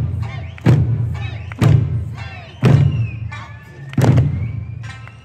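Eisa drums, large ōdaiko barrel drums and small hand-held paranku, struck together in slow unison, five booming strokes about a second apart, each dying away, over music.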